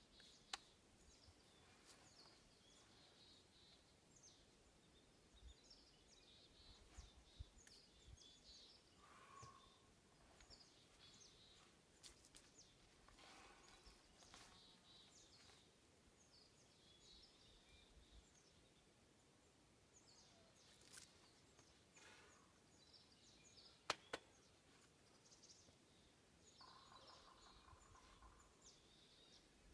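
Near silence: faint outdoor ambience with scattered high chirps and a few soft clicks, the sharpest about 24 seconds in.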